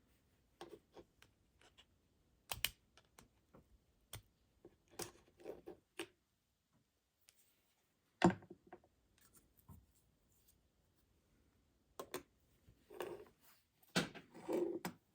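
Flat-blade screwdriver working at the plastic catches of an electric shaver's housing: scattered sharp plastic clicks and snaps with short scrapes as the parts are handled, the loudest snap about eight seconds in.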